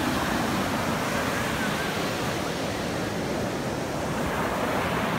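Ocean surf breaking and washing up a sandy beach, a steady rushing hiss with no single wave standing out.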